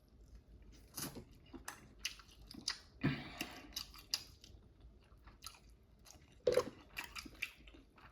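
Close-miked chewing of baked Cornish hen: irregular mouth smacks and bites with short pauses between them.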